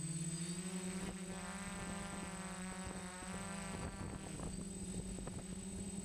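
Quadcopter's brushless motors (SunnySky 2216 800KV) and props droning at a steady pitch as picked up by the camera on board. The pitch sags slightly and recovers near the start, with scattered light ticks and a thin high-pitched tone above.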